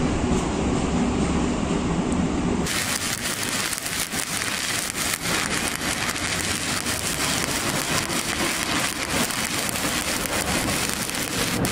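Stick-welding arc from a 7018 electrode crackling and sizzling steadily while running a vertical-up (3G) weld. About two and a half seconds in, the sound changes abruptly from a heavier, lower noise to a sharper, crisper crackle.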